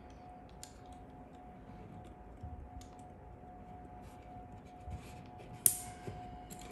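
Pliers gripping and tearing spot-welded nickel strip off the ends of 18650 lithium-ion cells: a few small scattered metallic clicks, with one sharp click near the end.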